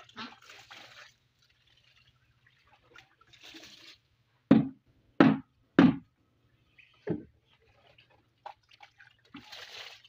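Loose dry soil being scraped and worked with a tool along the base of a wall, with three loud thuds in quick succession about halfway through and a fainter one a second later.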